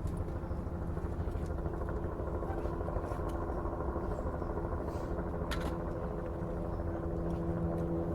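Steady low mechanical rumble with a constant hum, like a motor running, plus a couple of faint clicks.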